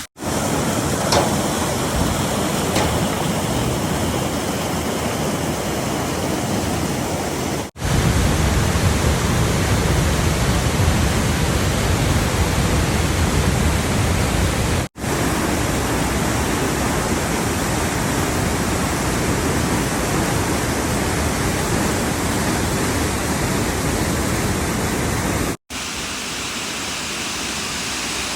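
Waterfall: a steady rush of falling water, broken by sudden cuts about 8, 15 and 26 seconds in. Between the first two cuts the rush carries a heavier low rumble.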